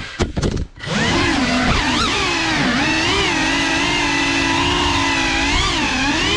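Geprc FPV drone's brushless motors and propellers whining, the pitch rising and falling with throttle. Right at the start the motor sound cuts out for under a second with a few sharp knocks of a crash, then the motors spin back up and the drone flies on.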